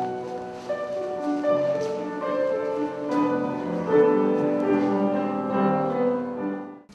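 Gentle classical instrumental music led by piano, notes held and overlapping, fading out near the end.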